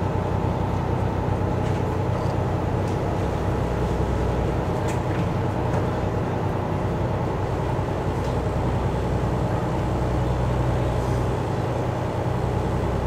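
Cruise boat's engine running steadily, a constant low drone heard from inside the passenger cabin.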